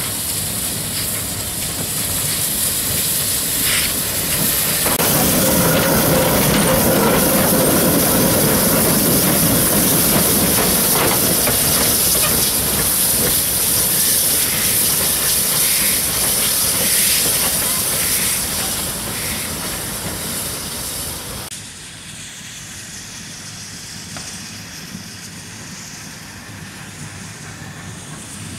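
J class steam locomotive J515 passing slowly with steam hissing loudly from its front end, loudest as it goes by. About three-quarters through, the sound drops to a quieter, steady steam hiss from the standing locomotive.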